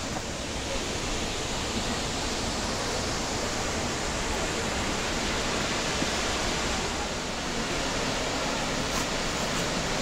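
Sita Falls waterfall: a steady rush of falling water.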